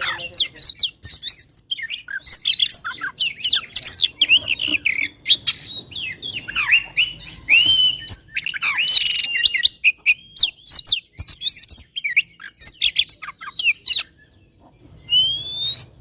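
Oriental magpie-robin (kacer) singing its excited fighting song: a fast, dense run of varied whistles, chirps and harsh notes. The song breaks off about a second before the end and resumes with a steeply rising whistle.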